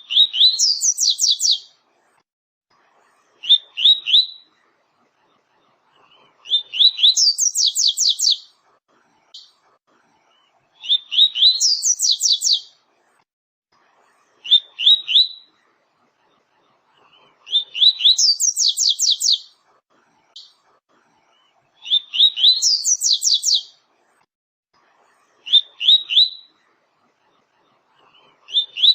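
Double-collared seedeater (coleiro / papa-capim) singing its 'tui-tui' song type over and over. Each phrase is a few quick rising whistled notes, usually run into a fast high trill, with short pauses between phrases. About eight phrases are heard.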